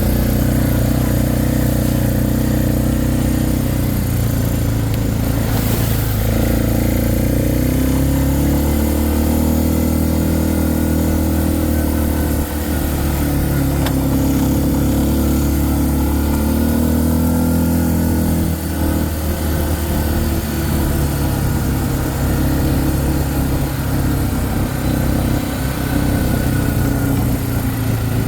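Four-wheeler (ATV) engine running while riding, its pitch shifting up and down several times with the throttle.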